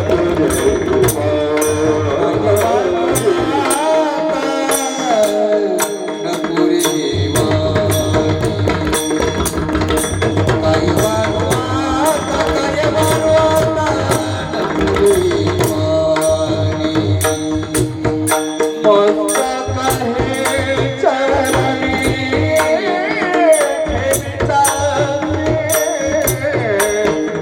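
Men singing a Marathi kirtan devotional tune, accompanied by a hand drum and small hand cymbals (taal) struck in a steady beat.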